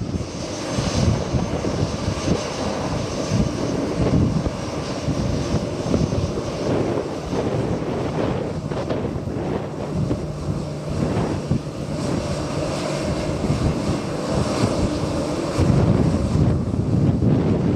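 Jet airliner engines running, a steady heavy rumble with a high hiss. A low steady hum joins about ten seconds in for several seconds.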